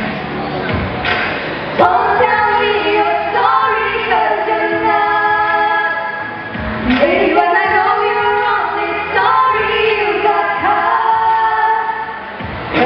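Two teenage girls singing a duet into hand-held microphones, their voices amplified in a large hall.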